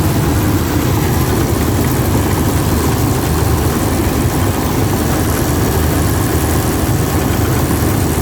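Mobile rice milling machine running steadily, its engine and mill making a loud, unbroken low drone as rice is milled.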